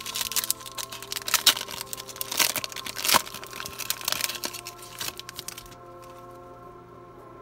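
Foil wrapper of a Mosaic football card pack crinkling and tearing as it is ripped open by hand, a dense crackle that stops about five and a half seconds in. Soft background music with steady held tones runs underneath.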